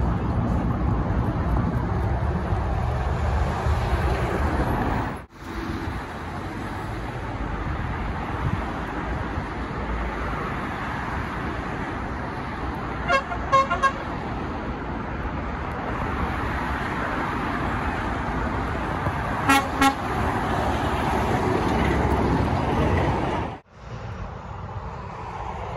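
Lorries driving past on a busy road, with a horn sounding three quick toots about 13 seconds in and two more about 20 seconds in.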